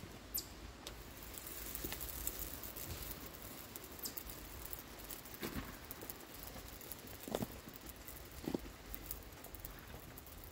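Faint crackling and sizzling from a charcoal grill and the hot frying pan on it, with a few light knocks, the two loudest in the second half.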